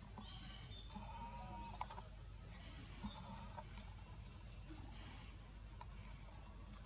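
Bird chirping: about four short, very high-pitched calls that dip and rise in pitch, a second or two apart, over faint forest background.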